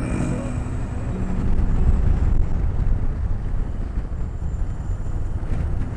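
Motorcycle running along the road, a steady mix of engine noise and wind on the microphone.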